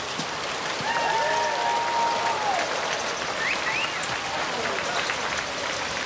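Steady hiss of rain falling. About a second in there is one long drawn-out tone that bends down at its end, and about halfway through two short rising chirps.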